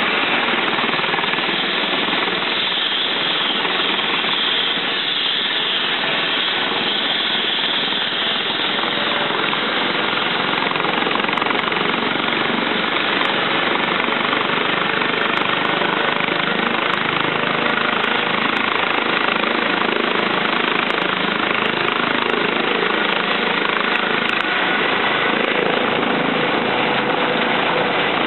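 Eurocopter EC135 twin-turbine helicopter running on the ground ahead of take-off: a loud, steady turbine and rotor rush with a faint steady whine.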